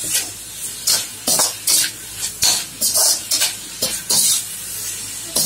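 Spatula scraping round an iron kadai, stirring chicken pieces with ground pepper masala, about two strokes a second, over the steady sizzle of the chicken frying on a high flame.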